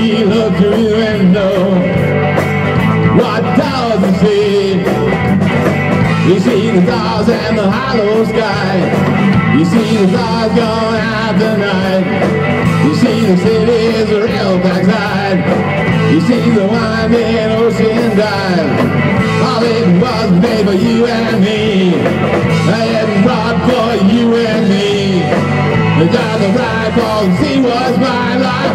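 Rock band playing live: electric guitar, electric bass and a Tama drum kit, continuous and loud.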